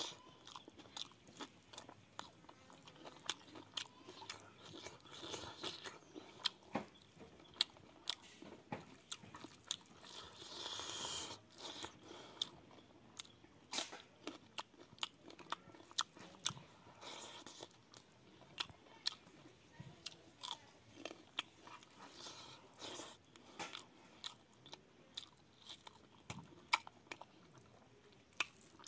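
A person chewing and biting mouthfuls of rice, boiled pork and raw green chilli close to the microphone: a steady stream of sharp, wet mouth clicks, several a second.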